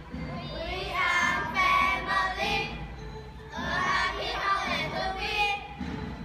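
A group of children singing together in chorus: two sung phrases with a short break between them.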